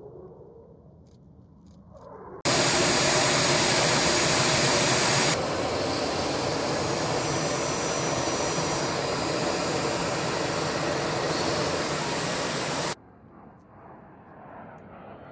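Military jet engine noise in pieces joined by hard cuts. A faint, distant jet grows louder over the first two seconds. A loud, steady jet roar cuts in about two and a half seconds in and runs for about ten seconds, easing slightly a few seconds after it starts. It cuts to quieter engine noise near the end.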